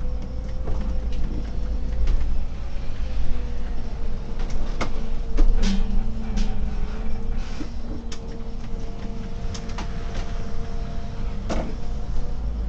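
Solaris Urbino 18 articulated city bus under way, heard from the driver's cab: a steady low rumble with a slightly wavering whine, and scattered sharp rattles and knocks from the bodywork and fittings.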